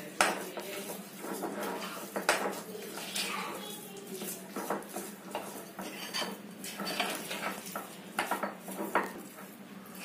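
Metal spoon stirring a thick gram-flour (besan) batter in a glass bowl, scraping and clinking against the glass at irregular intervals.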